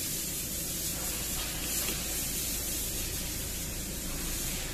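Steady hiss with a low hum underneath, with no distinct events.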